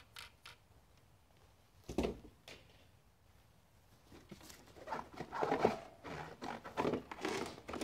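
Handling of the truck's cardboard packaging: a few light clicks, a single thud about two seconds in, then cardboard scraping and rustling from about four seconds on as the box insert around the truck is worked loose.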